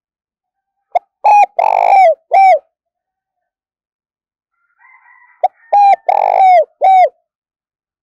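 Spotted dove cooing: two phrases a few seconds apart. Each is a short note, a held note, a longer burred note and a last note that falls in pitch.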